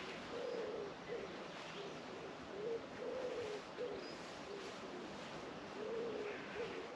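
A pigeon cooing, a low hooting phrase of several notes repeated over and over.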